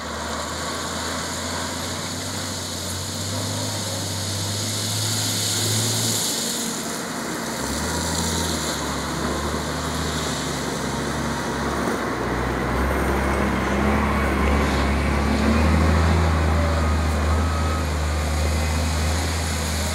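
Volvo EC210B crawler excavator's six-cylinder diesel engine running under working load, its note shifting in pitch several times as the hydraulics work the boom and bucket, with crushed stone grinding and spilling as the bucket digs and dumps.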